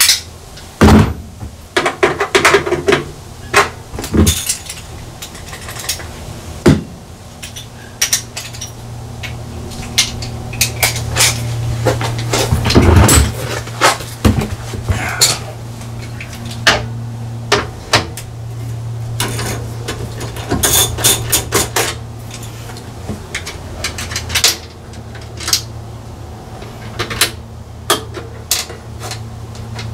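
Scattered clinks and clatter of metal hand tools and hardware being handled while wiring is taken apart, over a steady low hum.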